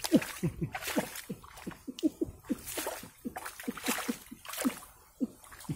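Shallow muddy floodwater splashing and sloshing as hands and bare feet churn it, searching along the bottom of a ditch, in many short splashes, two or three a second.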